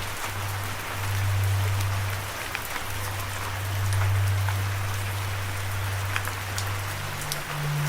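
Steady rain with scattered individual drops ticking close by, over a low sustained drone note that steps up to a higher note near the end.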